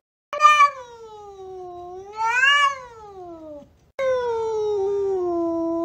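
Domestic cats caterwauling at each other through a glass door: two long, drawn-out yowls. The first dips, rises and falls again in pitch; after a short break the second is held nearly level.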